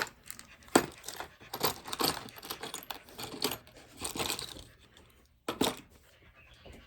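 Small metal drill-driver bits clinking and rattling as a bit set is rummaged through for a flathead bit: a run of irregular clicks that dies away about two-thirds of the way through, then two sharp clicks near the end.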